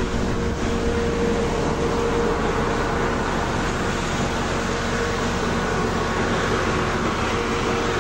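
Loud steady street noise with a low continuous hum running under it, like traffic or a motor nearby; it is noisy here.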